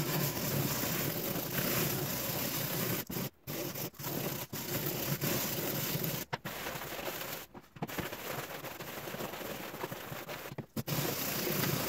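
Hand-held steel wire brush scrubbing the flat body of a circular saw blade coated in foaming grill cleaner, cleaning off grime and rust: continuous scratchy scraping strokes, broken by a few short pauses.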